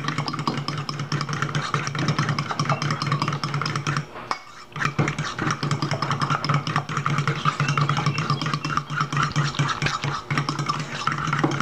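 Fork beating an egg-yolk and warm-milk mixture in a stainless steel bowl: rapid, steady clattering and scraping of metal on metal, with a brief pause about four seconds in.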